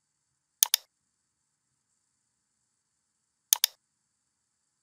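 Computer mouse button clicked twice, about three seconds apart, each a quick pair of sharp clicks as the button goes down and comes back up, with near silence between.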